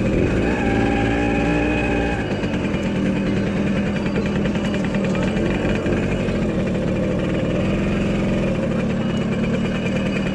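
Vintage car engine running steadily, with a held steady tone lasting about a second and a half near the start.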